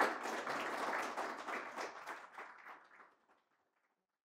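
Audience applauding, thinning out and dying away about three seconds in.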